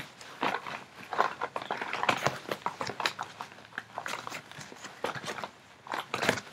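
Hand rummaging in a striped bag of small beauty-product samples, with irregular rustling and crinkling of bag and packets and light clicks as items are moved about.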